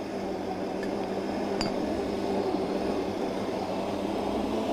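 Electric stand mixer running at a raised speed, its kneading attachment working bread dough in a stainless steel bowl: a steady motor hum, with a faint click about one and a half seconds in.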